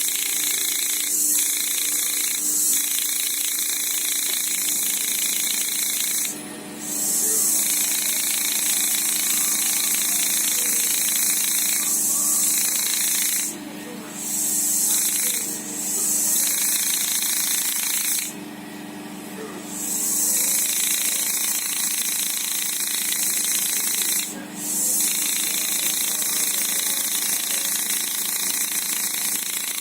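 A small electric power tool running with a steady hiss and hum, stopping briefly about five times and starting again.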